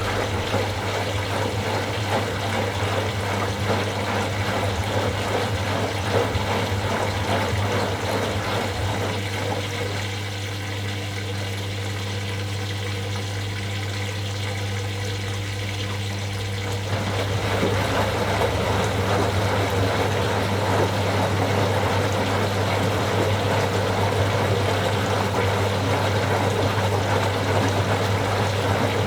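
Washing machine running mid-cycle: water sloshing and rushing over a steady low hum. It eases off about ten seconds in and swells again at about seventeen seconds.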